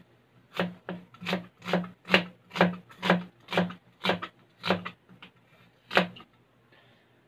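A cleaver slicing a whole onion on a cutting board: about a dozen even strokes, roughly two a second, each blade stroke ending in a knock on the board, stopping about six seconds in.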